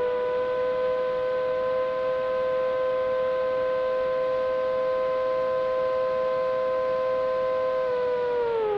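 Synthesizer tone with several overtones, held at one steady pitch like a siren over a faint hiss, then sliding down in pitch near the end.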